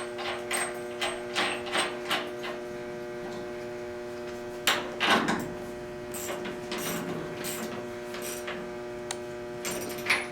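Steady hum of boiler-room equipment, with a quick run of light metallic knocks in the first two seconds and a louder clatter of metal about five seconds in, followed by scattered smaller knocks and scrapes.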